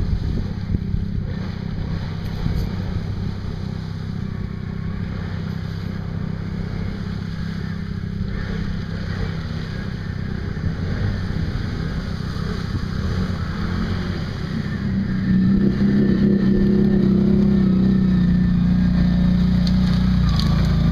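Modded Can-Am Outlander ATV engine running steadily under load as it ploughs through pond water, with water churning around the machine. The engine grows louder about three quarters of the way through as the ATV closes in and climbs toward the bank.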